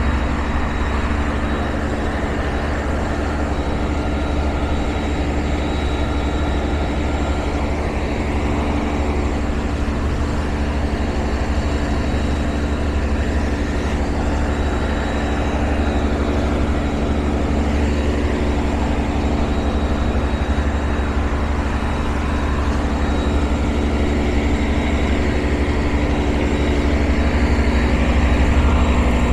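Heavy diesel engine of a tugboat pushing a ferry barge, running steadily: a low, even drone with a constant hum.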